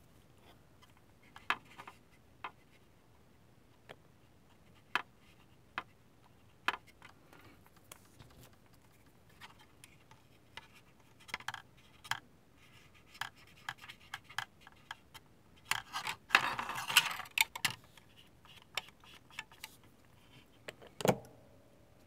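Light clicks and taps of small hobby tools and bottles being handled at a modelling bench, with a brief scraping rustle about sixteen seconds in and a louder knock near the end.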